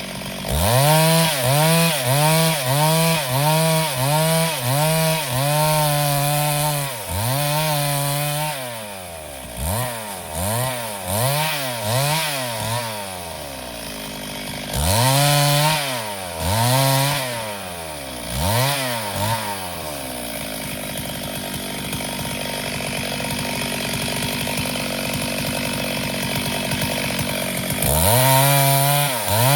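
Chainsaw engine revved in repeated throttle blips, its pitch rising and falling with each one, quickly at first and then more slowly. In the middle comes a spell of steadier running without the blips, and the blipping resumes near the end.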